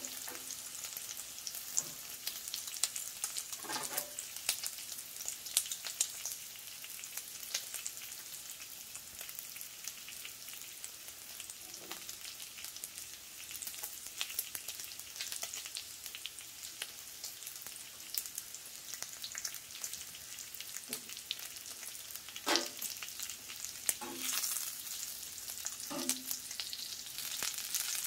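Bacon frying in its fat on the hot steel plate of a Blackstone 22-inch tabletop griddle, a steady sizzle with fine crackling. A few light knocks of metal utensils on the griddle come through, more of them near the end.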